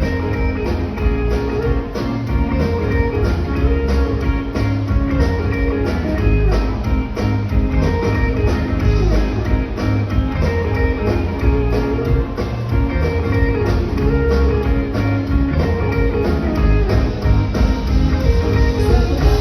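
Live rock band playing an instrumental passage: a guitar line over bass and drums keeping a steady beat.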